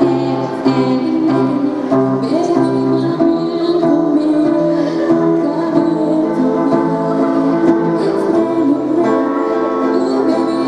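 Live band playing a pop song, with plucked acoustic guitar and a steady, pulsing bass note under singing.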